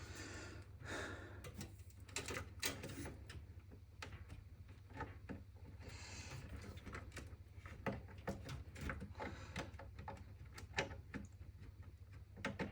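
Irregular clicks, taps and knocks of a power supply and its cables being handled and pushed into a metal desktop PC case, over a steady low hum.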